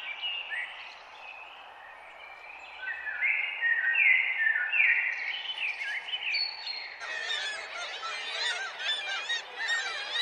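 Birds calling: separate calls with a run of several similar repeated notes, then, about seven seconds in, a sudden change to a dense chorus of many birds calling over one another.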